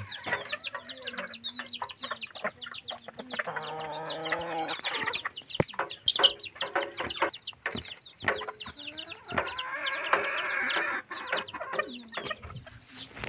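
Chickens clucking amid a dense run of quick chirps, with two longer drawn-out calls, likely a rooster crowing, about three and a half and nine and a half seconds in.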